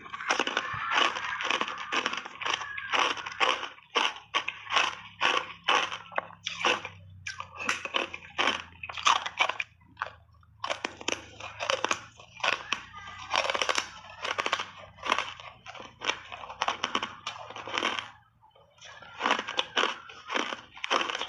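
Hard ice coated in matcha powder being bitten and chewed close to the microphone: a fast run of crisp crunches, several a second, with a brief pause near the end.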